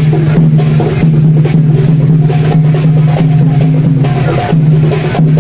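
Loud music led by drums: a steady beat of drum strikes, two to three a second, over a sustained low tone.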